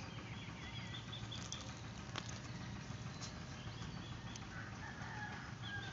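Birds chirping in short repeated notes in the background, with a few sharp crunches of raw bitter gourd being chewed.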